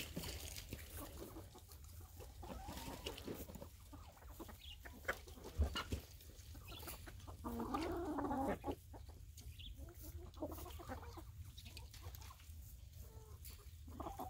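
Backyard chickens clucking softly as they forage, with a louder stretch of clucking about seven and a half seconds in.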